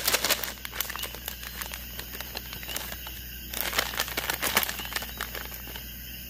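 Plastic M&M's candy bag crinkling, with the candies inside rattling as the bag is shaken, then rustling again about four seconds in as a hand digs inside and pulls out a candy.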